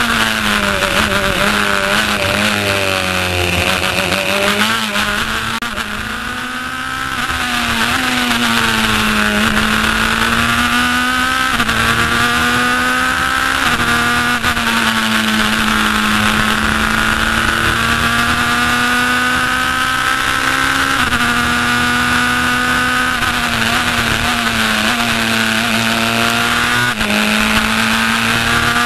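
Race car engine heard from the cockpit at full racing speed. Its pitch falls over the first few seconds, then climbs and drops sharply several times as the car shifts up through the gears. A steady rush of wind runs underneath.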